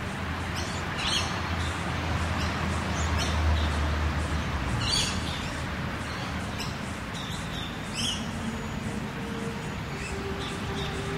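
Rural ambience: small birds chirping now and then over a steady background, while a car passes, its low rumble swelling to a peak about halfway through and fading away.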